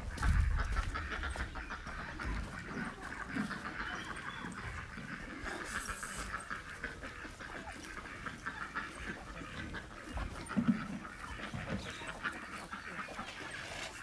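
A flock of farmyard chickens and ducks calling, a steady chorus of many short clucks and quacks, with a few low thumps near the start.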